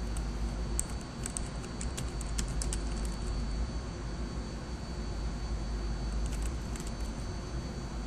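Computer keyboard being typed on in two short runs of keystroke clicks, one starting about a second in and another near the end, over a steady low hum.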